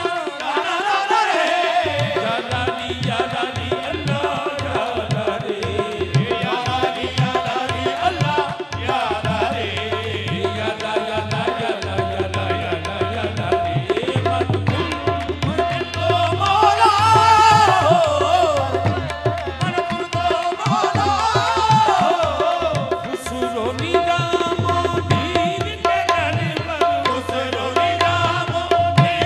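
Live qawwali: a harmonium holds a steady note under tabla drumming while the qawwals sing, the voices swelling loudest about two-thirds of the way through.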